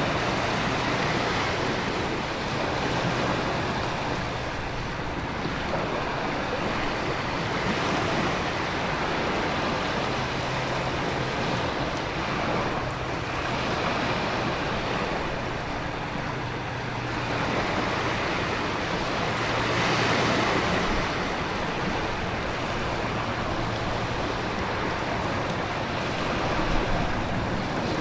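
Storm ambience: a dense, steady roar of heavy rain and wind, with ocean surf swelling and easing every few seconds.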